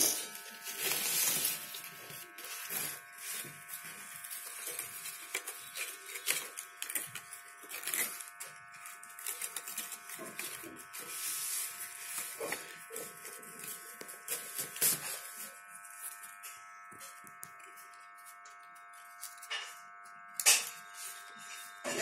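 Paper and card rustling, crinkling and tapping as the flaps and inserts of a handmade card box are opened and handled, with irregular short crackles. A steady buzzing hum runs underneath throughout.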